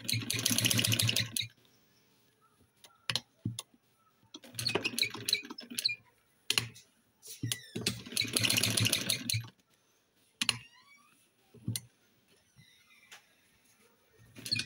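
Domestic sewing machine stitching a seam in three short runs of rapid needle strokes, each about one and a half to two seconds long, with a few separate clicks in the pauses between runs.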